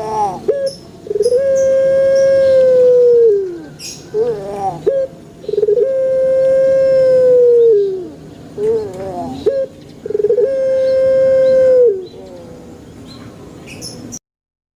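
Puter pelung dove calling: three long drawn coos, each held steady for about two seconds and then falling away, with short wavering notes between them. Faint high chirps sound above it, and the sound stops abruptly near the end.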